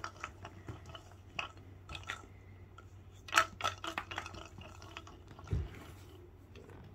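Clicks and rattles of a cat batting a treat-dispensing toy, a clear plastic ball on a springy stem, sending it swinging so the treats inside rattle, with a quicker cluster of clicks a little after three seconds. A dull thump about five and a half seconds in.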